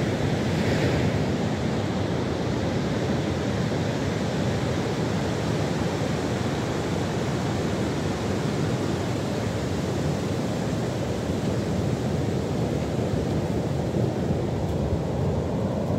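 Surf breaking and washing up a sandy beach: a steady, continuous rush of waves.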